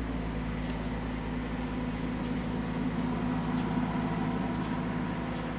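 A steady low mechanical hum, like a motor or household appliance running, with several even low tones and a light hiss and no sudden sounds.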